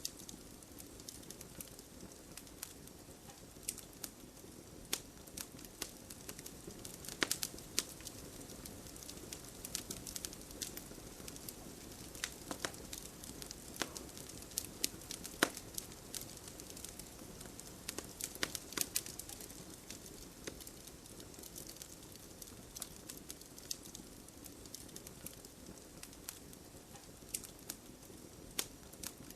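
Wood fire burning in a fireplace: a soft steady hiss with frequent irregular crackles and sharp pops from the burning logs.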